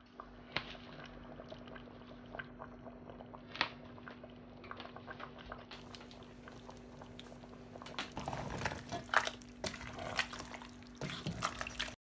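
A steel pot of cocoyam soup bubbling and simmering on the hob as it cooks, over a steady low hum, with scattered clicks and pops that grow busier in the last four seconds.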